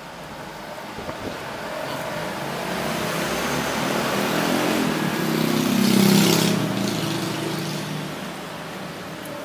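A motor vehicle passing close by on the road. Its engine and tyre noise build over several seconds, peak about six seconds in, then fade away.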